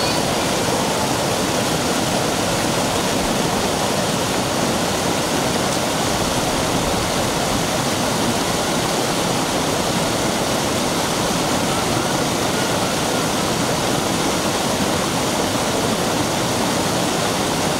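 Mountain stream rushing steadily down a rock slab in a small cascade.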